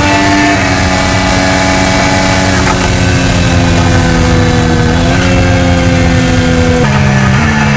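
IndyCar's 2.2-litre twin-turbo V6 heard from the cockpit at high revs, its pitch held nearly level with a few stepwise shifts: a drop about half a second in and further changes about five seconds in and near the end. Wind and tyre noise run underneath.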